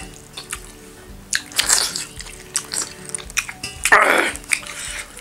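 Close-miked eating with the hands: chewing, lip smacking and the wet squelch of fingers working millet dhido in soup, over soft background music. The loudest mouth sound comes about four seconds in, as a handful goes into the mouth.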